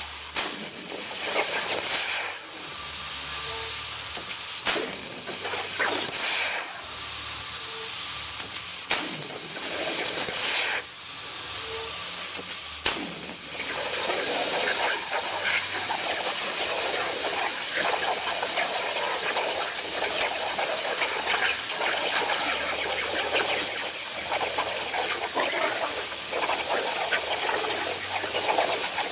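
CNC plasma cutter's torch hissing steadily as it cuts over a water table. In the first half the hiss dips a few times and there are three sharp clicks; after that it runs evenly.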